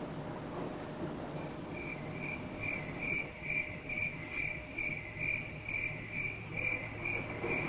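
A cricket chirping in a steady, even rhythm of about two chirps a second. The chirps start about a second in, faint at first. A low steady hum runs underneath.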